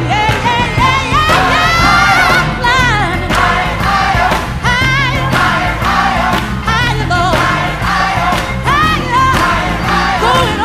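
Background music: a song with singing over a steady beat and bass.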